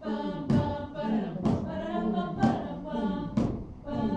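A group of voices singing together on stage, with a sharp thump about once a second keeping the beat.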